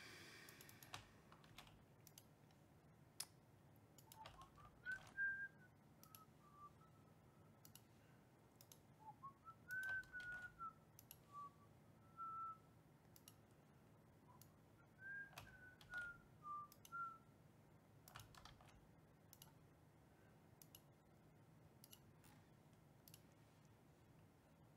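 A person whistling a short tune softly, in three brief phrases, with scattered faint mouse clicks.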